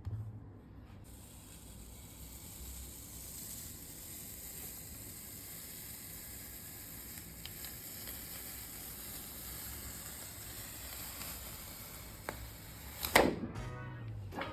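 A steady high hiss that starts abruptly about a second in and cuts off about a second before the end, followed by a loud short clatter.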